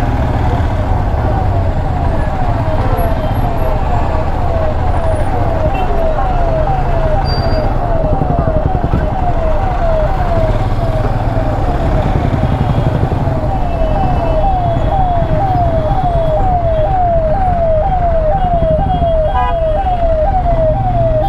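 Ambulance siren sounding close by in a fast repeating sweep, each cycle a quick fall in pitch, about two a second, over the low rumble of engines in traffic.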